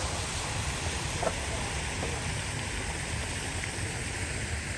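Steady rush of breeze and sea, with wind rumbling on the microphone.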